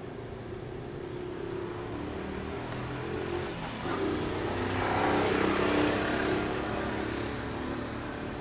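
Kawasaki ZXR250R inline-four idling steadily through a Daishin DIC aftermarket exhaust, swelling louder for a couple of seconds around the middle.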